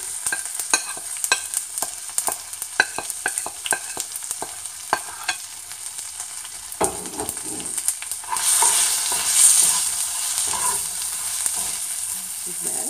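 Tadka of mustard seeds, urad dal, cumin, dried red chilies, ginger-garlic paste and ground spices sizzling in hot oil in a small frying pan, with sharp popping and crackling through the first half. The sizzle grows louder about eight seconds in, and a spoon stirs the spices near the end.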